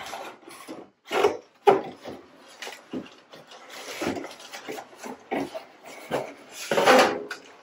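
Cardboard packing inserts scraping and rustling against the box as they are pulled out by hand, in irregular strokes with a sharp knock about a second and a half in and a longer scrape near the end.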